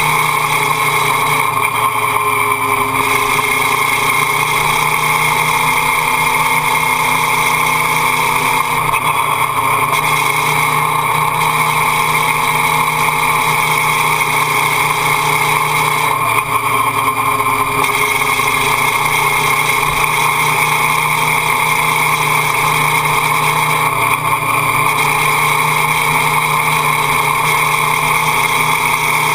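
Motorcycle engine running at steady part throttle through a long, continuous lean, mixed with wind and road noise at a camera mounted low by the footpeg. The engine note rises and falls gently every several seconds.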